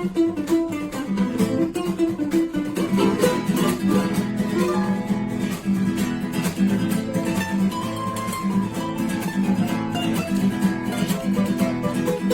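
Background music: fast acoustic guitar playing, plucked and strummed.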